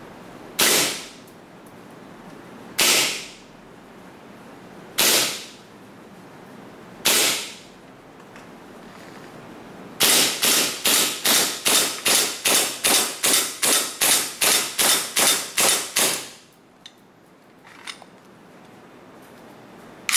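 Green-gas MK23 airsoft pistol firing 0.2 g BBs for an FPS test: four single shots about two seconds apart, then a rapid string of about eighteen shots at roughly three a second.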